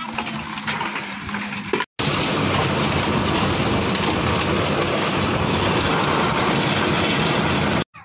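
Diesel engine of a concrete lift mixer running loud and steady with a low, even chugging, starting abruptly about two seconds in after a quieter stretch of site clatter.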